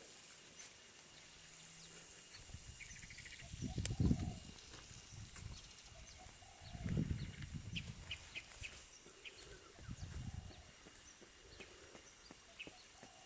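Garden ambience of scattered short bird chirps over a steady high insect hiss, broken by a few low rumbling thuds about four seconds in and again around seven and ten seconds.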